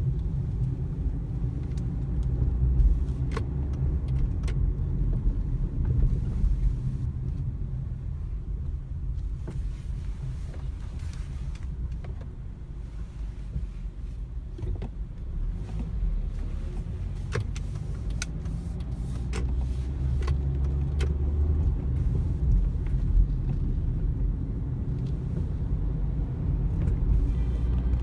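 Sharp, irregular knocks come from the steering of a Hyundai ix35–Kia Sportage, several seconds apart, over the car's steady low rumble. This knocking in the steering and electric power steering is a common fault of these Hyundai and Kia models.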